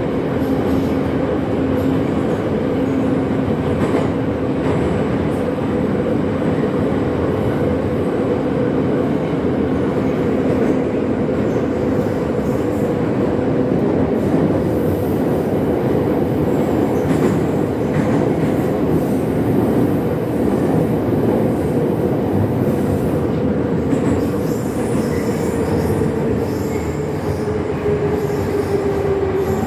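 Retro Moscow metro train running in the tunnel, heard from inside the carriage: dense wheel-and-track rumble under a steady whine. Near the end the whine falls in pitch as the train slows into a station.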